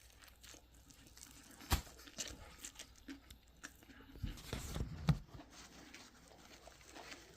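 A person biting into and chewing a crispy, hand-breaded chicken tender wrap: scattered crunches and crackles, with a sharp crunch under two seconds in and a denser burst of crunching about four to five seconds in.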